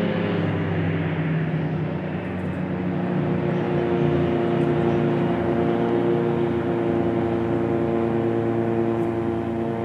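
Pilatus PC-7 turboprop aircraft flying past, their engines and propellers giving a steady drone of several pitched tones. The pitch slides down in the first second or so as they pass, then holds steady.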